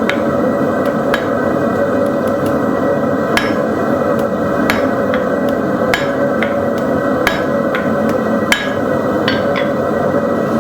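Hand hammer striking steel on an anvil, about one blow every second and a quarter, each with a short metallic ring, then two lighter taps near the end, all over a steady loud background noise.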